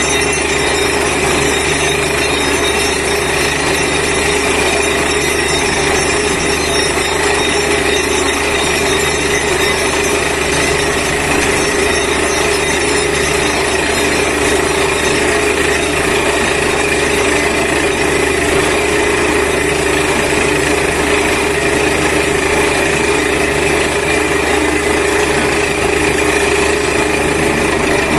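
Truck-mounted borewell drilling rig drilling, loud and steady: the air-driven hammer working in the hole over the running engine and air compressor.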